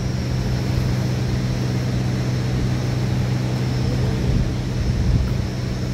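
A steady, low machine drone holding one constant pitch throughout, with a hiss above it.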